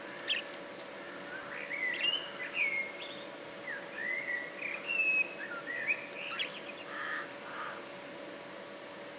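Budgerigars chirping and warbling: a string of short chirps that glide up and down in pitch, coming quickly in the middle and thinning out near the end.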